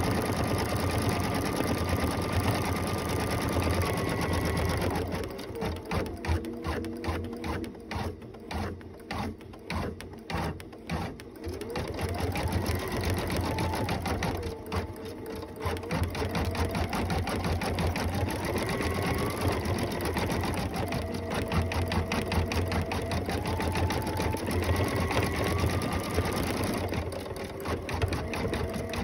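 Computerized embroidery machine stitching through felt in its hoop: a fast, even needle chatter with a motor whine that steps and glides up and down in pitch. From about five to twelve seconds in it runs quieter and choppier.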